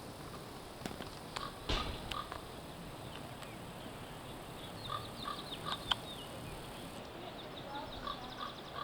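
Short, repeated chirping calls from a small animal or bird, with a few sharp clicks between them.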